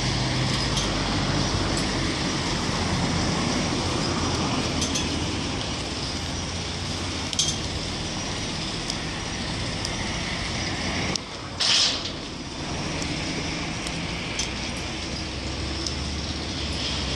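Steady outdoor background noise with a low engine-like hum, the hum strongest at the start and again near the end. About twelve seconds in, a brief loud hiss cuts through.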